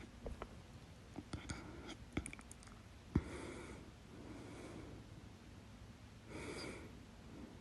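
A woman breathing quietly during a bout of hiccups, with a few soft clicks and one sharp, sudden hiccup about three seconds in, followed by a breath.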